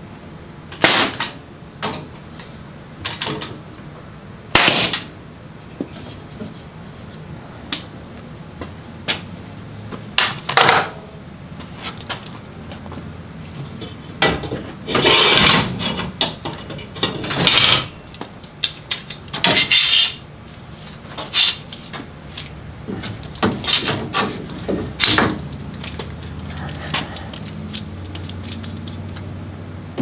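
Irregular knocks, clicks and clatter of clamps and wood being handled in a workshop glue-up, with a few scraping sounds about a second long around the middle.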